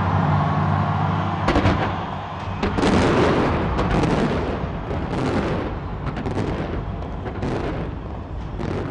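Fireworks going off in rapid volleys of bangs and crackles. They start about one and a half seconds in, as low music ends.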